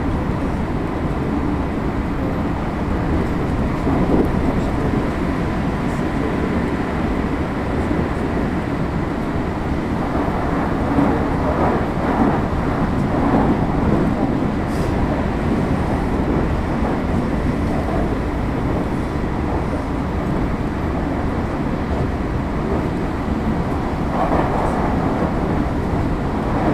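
Running noise heard inside a JR West 225 series 0-bandai electric train at speed: a steady rumble of wheels on rail, with a faint steady tone above it.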